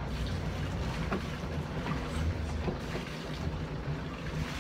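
Sailing yacht under way: wind and water noise over a steady low rumble, with a few faint knocks.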